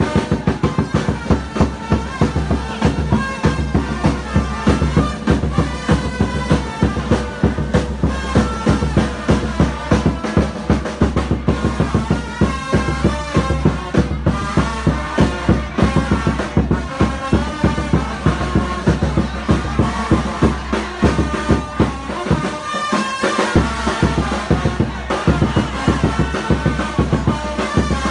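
Loud music driven by a fast, steady drum beat over a heavy bass, with a melody line above; the bass drops out briefly near the end.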